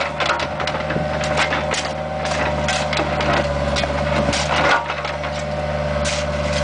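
Bobcat 430 ZHS mini excavator running steadily while its bucket tears up asphalt, with repeated cracking and crunching of breaking asphalt slabs; the loudest crunch comes a little under five seconds in.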